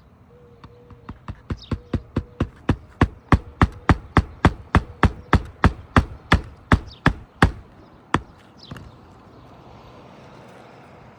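Hammer driving roofing nails through an asphalt shingle, a steady run of blows about three to four a second that grows louder and then stops about eight seconds in. The nailing is the re-nailing of a replacement shingle in a repair test, during which the shingle splits at old staple holes.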